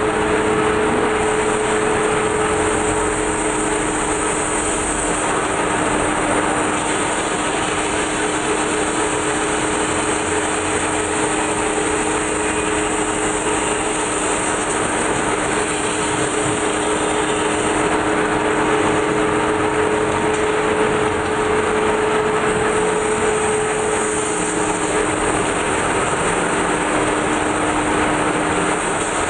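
Large metal spinning lathe running, with a big sheet-metal blank being pressed into a dish shape by a hand-levered spinning tool. A steady mechanical din with an even hiss over a steady two-note hum; the higher note fades about three-quarters of the way through.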